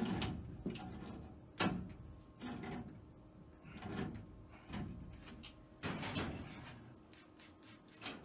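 Scattered light knocks, scrapes and rustling of hands and tools working on furnace gas fittings.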